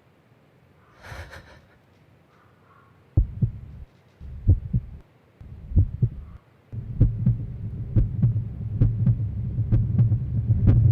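Low heartbeat-like throbbing: separate deep thuds begin about three seconds in, and from about seven seconds they merge into a continuous low hum with sharp ticks about three times a second, getting louder.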